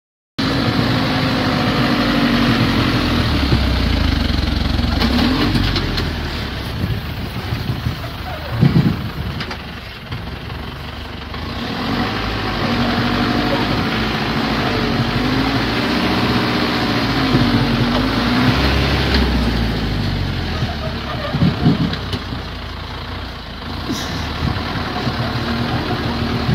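Heavy six-wheel-drive logging truck's engine labouring under load, its revs rising and falling unevenly as it struggles through mud. A couple of loud knocks come about nine seconds in and again a little after twenty seconds.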